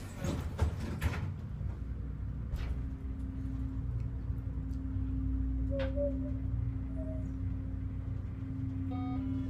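Elevator ride: a couple of knocks as the doors close, then the car's steady motor hum as it rises, with a brief chime about nine seconds in.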